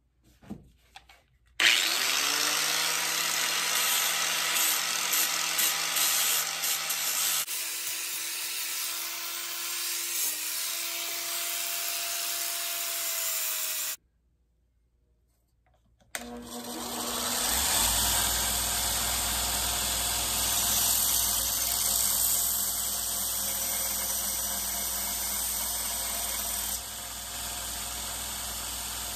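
Electric grinding tools working a rusty steel axe head: an angle grinder with a flap disc spins up and grinds, and after about two seconds of near silence a belt grinder spins up and runs with the axe head held against it.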